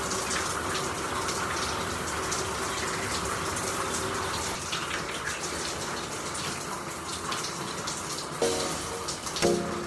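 Water running in a steady, continuous stream, with a couple of short pitched sounds near the end.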